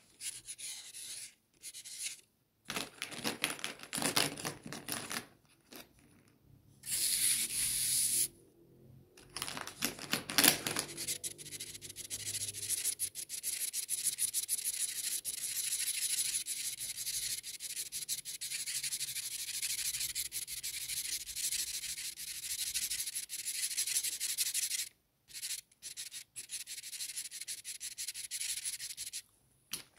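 Felt-tip pen and marker tips scratching on paper. At first there are separate drawing strokes; then, from about a third of the way in, a fast, steady back-and-forth scratching as an area is coloured in, which breaks off briefly a couple of times near the end.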